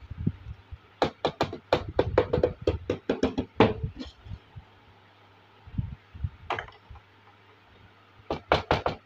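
Light plastic tapping and clicking as small toy kitchen pieces are handled: fast runs of taps at about five a second from about a second in until about four seconds, a few soft bumps and a single click in the quieter middle, then fast tapping again near the end. A faint low hum runs underneath.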